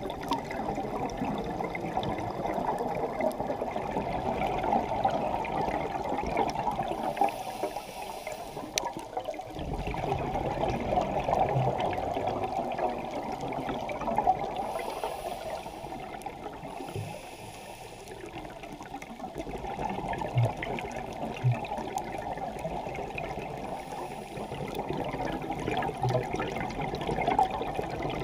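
Muffled underwater rushing and bubbling from scuba exhalations, heard through a camera's waterproof housing; it swells and fades over several seconds.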